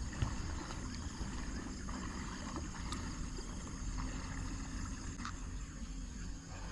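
Steady low rush of a flowing stream, with a few faint small clicks.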